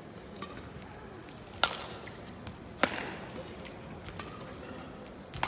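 Badminton rackets striking the shuttlecock during a rally: three sharp cracking hits, the first two about a second apart and the third near the end, with a few fainter clicks between them.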